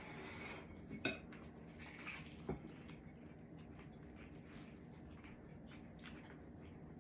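Quiet clinks and scrapes of a plate as fried chicken and rice are eaten by hand, with two sharper knocks against the plate about one and two and a half seconds in.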